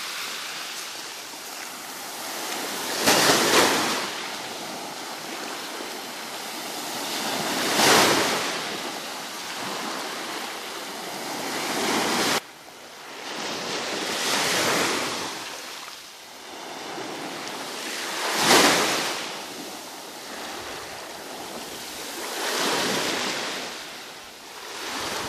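Sea of Azov surf: waves washing onto the beach, each one swelling and fading every four or five seconds.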